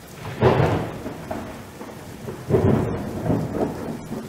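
Thunder rumbling over steady rain, swelling loudly twice, about half a second in and again about two seconds later.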